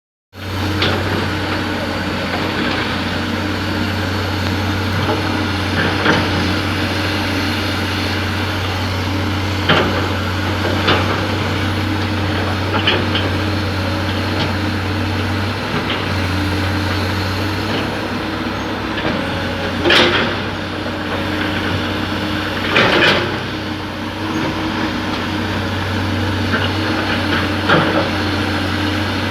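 Hydraulic excavator's engine running steadily under load, with short clanks and scrapes from the machine and bucket now and then, the loudest about twenty and twenty-three seconds in.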